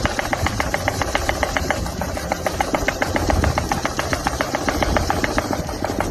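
A machine running with a rapid, even hammering of about eight strikes a second over a low rumble, cutting off suddenly at the end.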